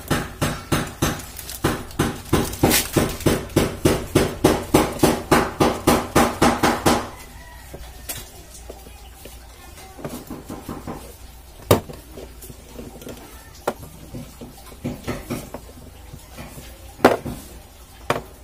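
Rapid, even metal-on-metal tapping on stand fan parts during repair, about three to four ringing taps a second, stopping about seven seconds in; after that only a few scattered single knocks.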